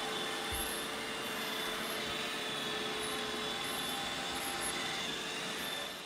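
Robot vacuum cleaner running on a hardwood floor: a steady whir of motor and brushes, with a faint constant high whine.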